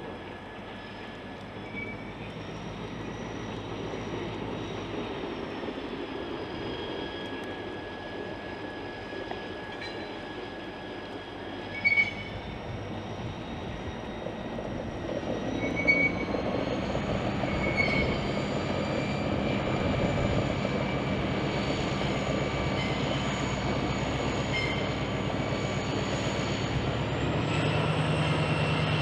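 Diesel locomotive hauling a string of railcars, approaching and growing steadily louder: a low engine drone with the rumble of wheels on rail. A thin, high wheel squeal slowly rises in pitch, and two sharp clanks come about twelve and sixteen seconds in.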